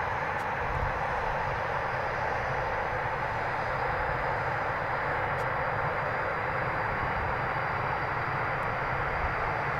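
Two Eurofighter Typhoons' Eurojet EJ200 turbofan engines running steadily while the jets are lined up on the runway awaiting takeoff. The sound is an even jet rumble and hiss with a faint high turbine whine.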